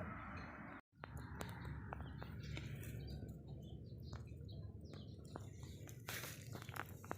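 Outdoor ambience: a steady low rumble with scattered small clicks and faint bird chirps. The sound drops out completely for an instant a little under a second in.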